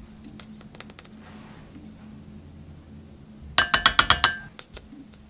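A small glitter jar knocked rapidly against the rim of a clear glass bowl, about eight quick clinks in under a second, each leaving the glass ringing. Before it come a few faint clicks and the soft hiss of glitter pouring into the bowl.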